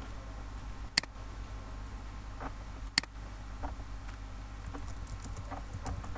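Sparse, irregular computer keyboard keystrokes and clicks over a steady low hum, with two sharper clicks about a second and three seconds in.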